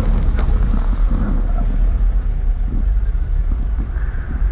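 Steady low rumble of a car's engine and road noise, heard from inside the cabin as it drives.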